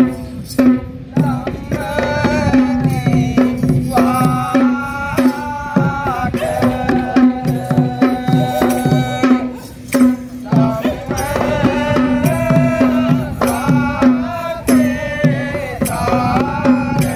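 Music: hand drums playing a steady rhythm under a bending melody, over a held low drone note.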